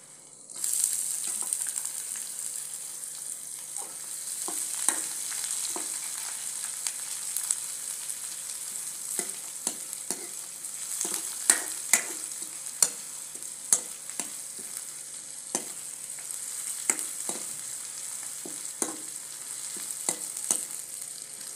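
Sliced onions frying in hot oil in a kadhai. The sizzle starts suddenly about half a second in, as the onions go into the oil, and runs on as a steady hiss. A metal ladle stirring them gives repeated sharp clinks and scrapes against the pan.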